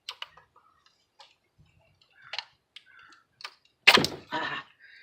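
Pliers clicking and scraping on a stuck ignition coil boot on a spark plug. About four seconds in there is one loud sharp snap with a brief rasp as the boot tears under the pull.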